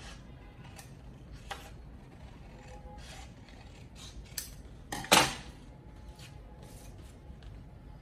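Scissors snipping through craft paper in a string of short cuts, with one louder clack about five seconds in.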